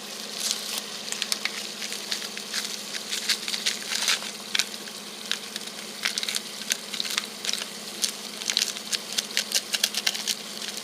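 Food frying in a hot pan for fried rice: a steady sizzle with dense, irregular pops and crackles. A steady low hum runs underneath.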